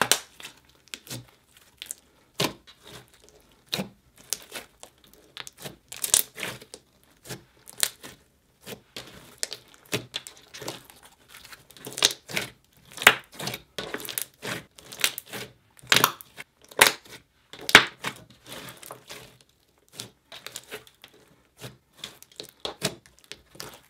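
Thick slime, clear slime mixed with clay, paint and makeup, being kneaded, folded and stretched by hand, giving irregular sharp pops and crackles with softer squishes in between.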